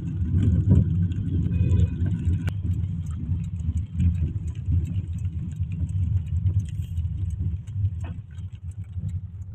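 Car driving in heavy rain, heard from inside the cabin: a steady low road and engine rumble, with scattered light ticks of raindrops hitting the glass.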